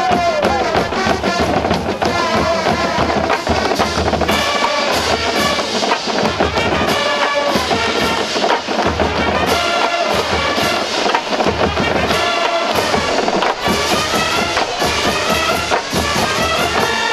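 Brass band music, trumpets and trombones playing a tune over a drum beat.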